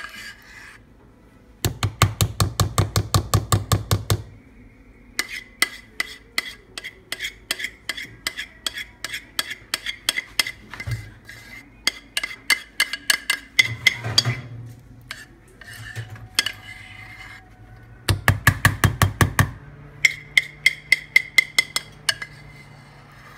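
A utensil scraping thick batter out of a mixing bowl into a loaf tin, in quick, even strokes of about six a second. The strokes come in bursts, heaviest about two seconds in and again near the end, with lighter scraping between.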